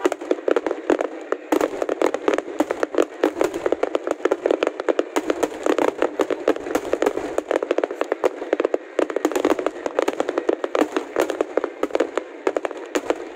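Fireworks display going off: a continuous, dense volley of bangs and crackling, many reports a second, with no let-up.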